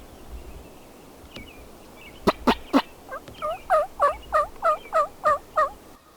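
Wild turkey calling: three sharp, loud notes, then a run of about nine evenly spaced yelps, roughly three a second.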